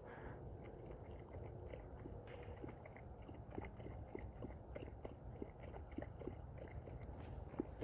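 A Caucasian Ovcharka lapping water from a small plastic bowl: a faint run of quick, irregular wet clicks.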